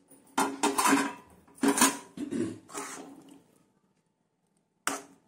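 Metal spoon scraping and clinking against an aluminium pan of thick curry. There are several strokes in the first three seconds and one more short clink near the end.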